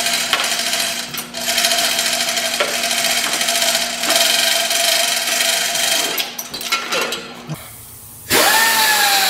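A power tool running in long bursts with brief pauses, a steady whine over a hiss. About a second before the end it stops and a gliding electronic tone cuts in.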